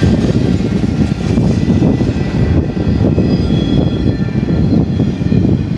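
Empty intermodal spine cars of a freight train rolling past: a loud, steady rumble of wheels on rail, with faint high squealing tones above it.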